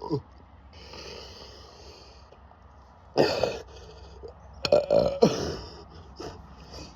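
The tail of a man's long burp, brought on by chugging carbonated Monster energy drink, cuts off right at the start. Then come a few short coughs and throat-clearing sounds, the loudest about three seconds in and then twice more close together a second and a half later.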